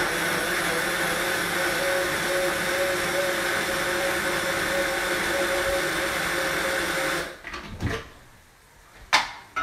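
Immersion blender running steadily, puréeing cooked lentils with onion and garlic into a velouté, its motor cutting off about seven seconds in. A sharp knock follows near the end.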